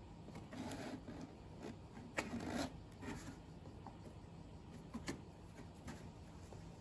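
Cat pawing and scratching inside a cardboard box toy: faint rustling and scraping of cardboard, with a few sharper scrapes about two seconds in, again half a second later, and once around five seconds.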